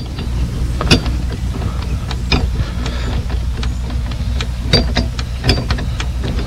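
Sharp metal clicks and scrapes as a slide hammer's sheet metal screw is twisted into a Ford's ignition lock cylinder, over a steady low hum. A few louder clicks stand out, at about one second in, two and a half seconds in, and twice near the end.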